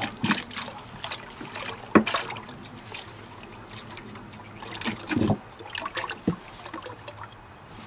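Antifreeze concentrate poured from a plastic jug into a plastic pail of coolant, trickling and splashing unevenly, with a sharper splash about two seconds in.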